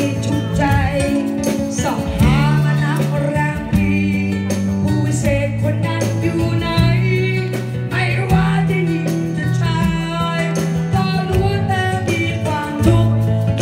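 A live band playing a song: a singer's voice with held, wavering notes over acoustic guitar, drums and a sustained bass line.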